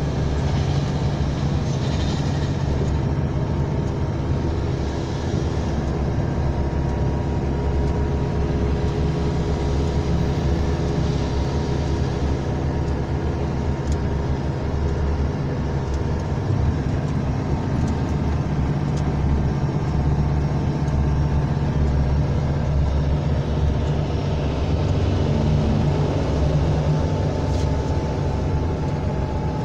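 Steady engine drone and road noise of a heavy vehicle heard from inside its cab, moving slowly in traffic.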